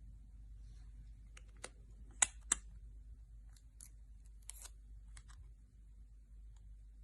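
Hands handling a phone box and its packaging: scattered small clicks, taps and scrapes, with two sharper clicks a little over two seconds in.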